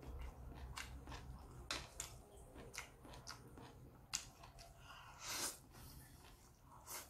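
A person eating instant noodles with chopsticks: wet chewing, lip smacks and small clicks, with a longer slurp of noodles about five seconds in.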